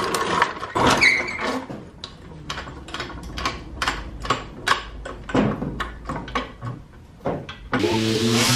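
Steel floor jack rolled over a concrete floor and worked into place under a utility vehicle: a quick run of sharp clicks and knocks, about three a second.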